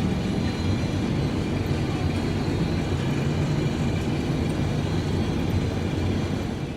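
Heavy vehicle engine running steadily, a loud continuous rumble and machinery noise that drops away at the very end.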